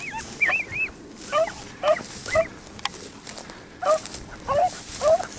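Rabbit-hunting dog yelping, about ten short high yips roughly two a second, in two runs with a pause near the middle: a hound giving tongue as it runs a rabbit through the grass.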